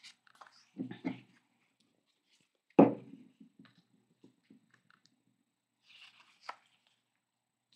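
Hands laying down and pressing glued paper pieces flat on a sheet of paper: soft paper rustles and dull pats, with one sharp knock a little under three seconds in and a short rustle with a click near the end.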